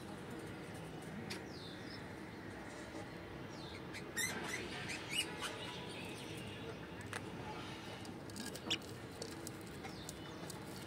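Faint high squeaky chirps from budgerigars in a nest box with newly hatched chicks, the sharpest few about four to five and a half seconds in, with scattered light clicks.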